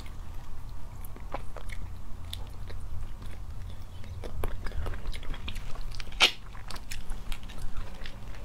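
Close-up eating sounds of spicy crayfish: shells cracked and peeled by hand and the meat chewed, as many small clicks and crunches with one sharper crack about six seconds in.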